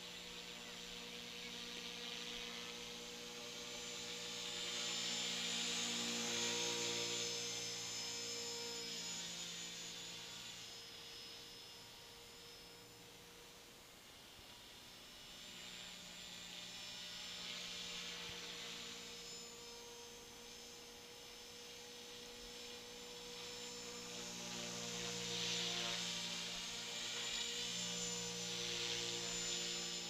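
Electric T-Rex 450-class RC helicopter in flight: the motor and rotors give a steady whine that swells louder and fades several times, loudest about a quarter of the way in and again near the end.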